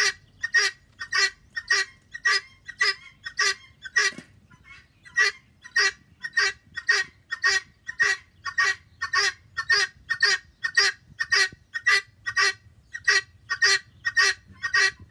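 Helmeted guineafowl giving a long run of harsh, repeated calls, about two a second, with a short break about four seconds in. The owner takes the calling as the bird demanding more worms.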